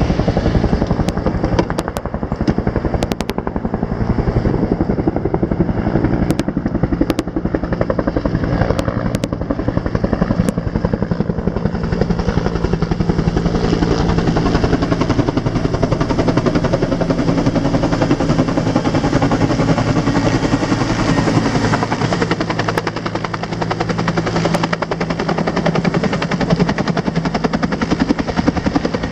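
Rescue helicopter running close by: a loud, steady, rapid chop of the rotor blades over a steady engine tone.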